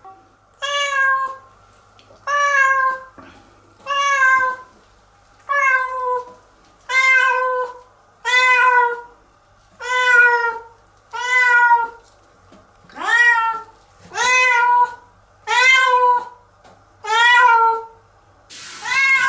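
Wet domestic cat meowing loudly over and over, about a dozen long meows roughly one every second and a half, crying in protest at being bathed. Running shower water starts hissing near the end.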